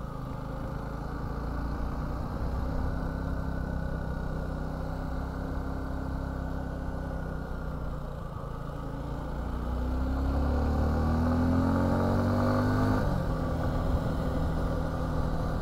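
Suzuki V-Strom 250's parallel-twin engine pulling uphill under load, its note steady at first, then rising in pitch and loudness over about four seconds before dropping sharply about thirteen seconds in, as at a gear change or throttle lift.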